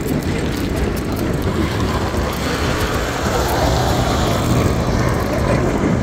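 Busy city street traffic: a steady rumble of road vehicles, with one passing louder through the middle before easing off.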